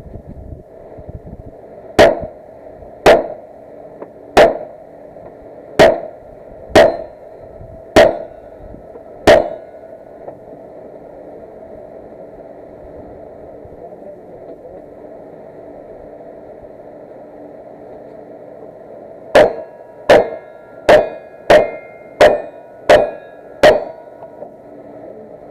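Gunshots in two strings of seven: the first string at about one shot a second, then after a long pause a faster string at about one and a half shots a second near the end. Steel targets ring briefly after the later shots.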